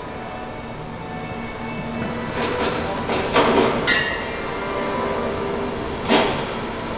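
Railway wheel being pressed off its axle in a depot wheel-removal press: a steady machine hum, with several sharp metallic clanks and a brief ringing squeal between about two and a half and four seconds in, and another clank about six seconds in.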